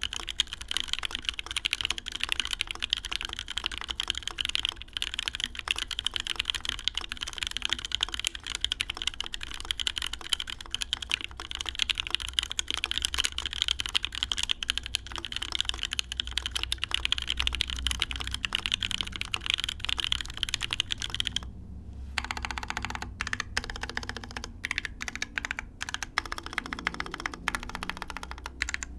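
Typing on a custom mechanical keyboard: a top-mount aluminum-plate Merisi Works Dodici with OP Black switches on stock springs and GMK ABS keycaps. A fast, steady run of keystrokes stops briefly about three quarters of the way through, then picks up again as sparser, separate key presses.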